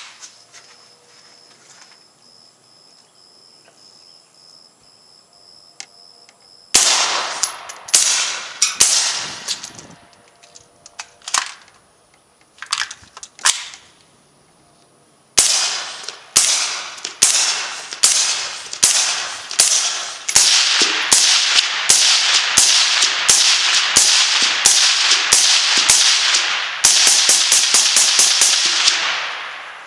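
A KelTec PLR-16 .223 pistol with a TAC-16 suppressor firing semi-automatic shots, each a sharp report followed by a short echo. After a quiet stretch of about seven seconds, roughly ten Extreme Shock subsonic rounds go off singly and in pairs. Then a long string of full-power .223 rounds follows, fired faster and faster until a rapid run near the end.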